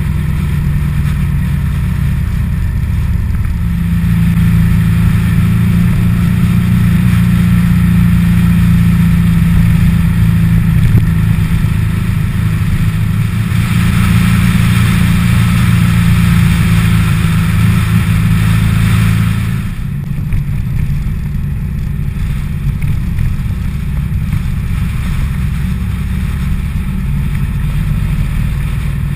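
Motorcycle engine running steadily under way, with wind rushing over the microphone. Engine and wind grow louder through the middle, then drop about two-thirds of the way through as the throttle is eased.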